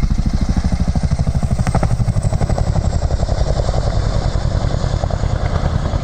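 CH-47D Chinook tandem-rotor helicopter, its rotor blades beating out a rapid, even thumping that holds steady. There is one sharp click about two seconds in.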